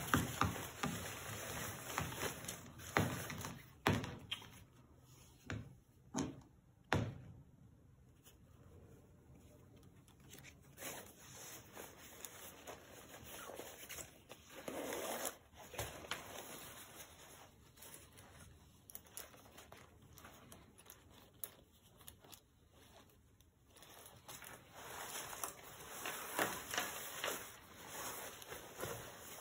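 Nylon jacket shell rustling and crinkling as it is handled and unfolded, with a few sharp knocks in the first seconds. A metal zipper is worked now and then. The handling is busiest at the start and again near the end.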